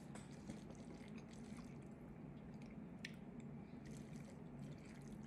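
Faint wet chewing and mouth sounds of someone eating a cold noodle salad, with a few small clicks, the sharpest about three seconds in, over a steady low hum.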